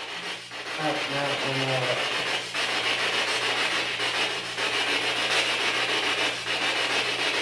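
Steady hiss with a low, steady hum beneath it.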